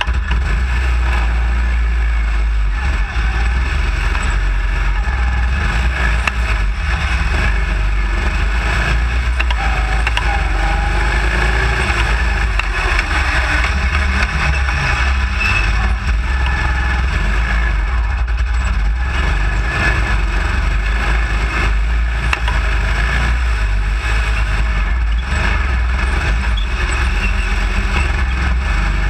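Baja SAE off-road car's single-cylinder Briggs & Stratton engine running steadily under load. Its sound is loud and even throughout.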